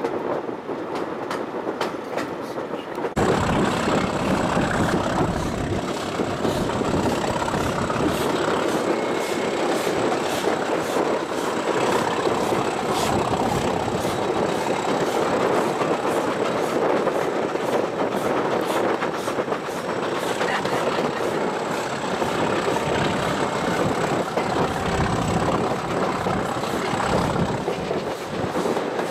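A train running on the rails: a dense steady rumble with regular short clicks from the wheels. About three seconds in the sound jumps louder and fuller.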